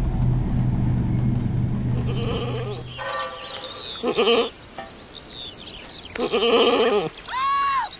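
A goat bleating four times: short calls about three and four seconds in, a longer one around six seconds, and an arched call near the end. A low steady hum fades out by about three seconds in.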